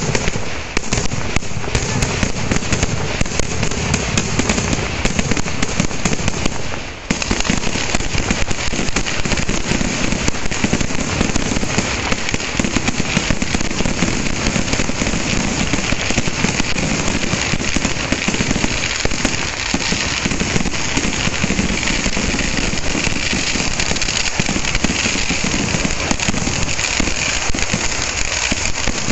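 Kerala temple fireworks (vedikkettu) going off in a dense, continuous barrage of rapid firecracker bangs and crackling, loud throughout. It dips briefly about seven seconds in, then keeps going.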